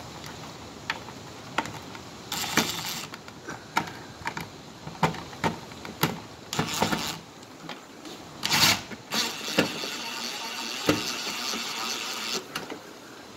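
Clicks and knocks from the plastic housing of a Simplex horn strobe being handled and fitted. Several rasping bursts of a screw being driven into the mounting, the longest near the end, as the screw head strips.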